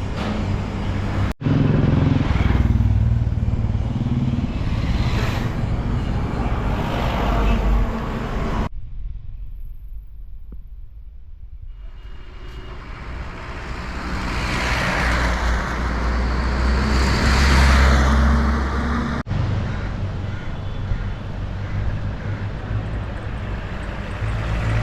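Busy city street traffic: motor vehicle engines running and passing close. The sound drops away for a few seconds in the middle, then a louder vehicle swells by. The sound cuts off abruptly and changes a couple of times.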